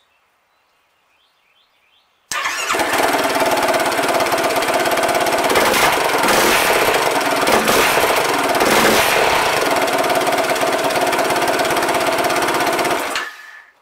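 Yamaha YFZ450R's single-cylinder four-stroke engine running through its stock exhaust with a new K&N air filter and no fuel tune, a tiny bit muffled. It comes in abruptly about two seconds in, runs steadily, and cuts off near the end.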